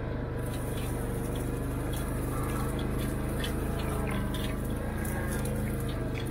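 Four-wheeler (ATV) engine running at a steady speed while riding, with a few faint ticks and rattles over it.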